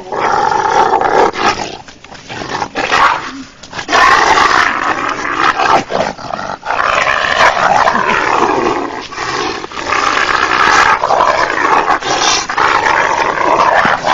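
A wolf growling and snarling while it fights with a person, nearly without pause, with brief breaks about two and three and a half seconds in.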